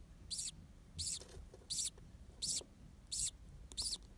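Budgerigar chirping: short high-pitched peeps repeating evenly, about every 0.7 seconds, six in a row.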